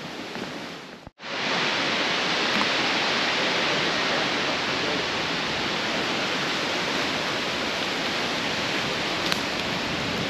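Wind through the woodland canopy, a steady rushing hiss of leaves that starts abruptly about a second in.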